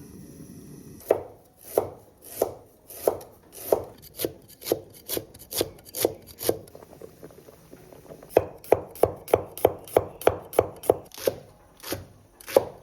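Kitchen knife chopping on a wooden cutting board. It starts with steady chops about two a second, pauses, then runs faster at about four a second for a few seconds, with two last chops near the end.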